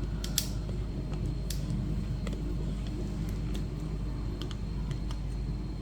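Small scattered clicks and taps from a hard plastic vinyl toy figure being handled and set down, over a steady low background rumble.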